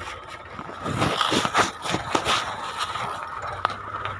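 Tractor engine running with a steady low drone, overlaid by irregular crackling and scraping knocks, loudest from about a second in.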